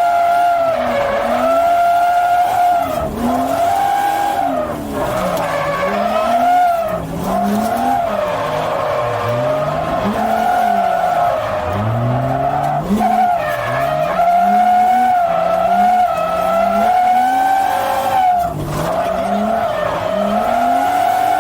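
Drift car, heard from inside the cabin during a drift run: the tyres squeal in one sustained, slightly wavering high tone, while the engine's revs swing up and down again and again as the driver works the throttle.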